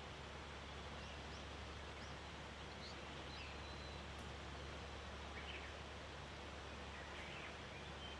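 Faint, scattered short bird chirps and calls from wild songbirds, heard over a steady background hiss and a constant low hum.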